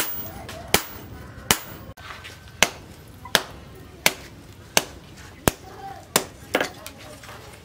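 Hand hammer striking a red-hot steel cleaver blade on a post anvil: sharp metallic strikes at a steady rhythm, about one every three-quarters of a second, with a quick double strike near the end.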